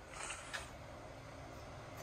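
Quiet workshop room tone with a low steady hum. A faint rustle and a light click come in the first half-second.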